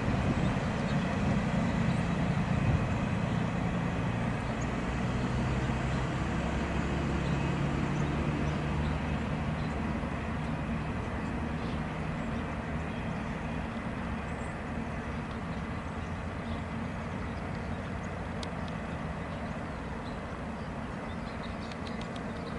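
Empty freight boxcars rolling past on the rails and away, a steady rumble that slowly fades as the end of the train recedes.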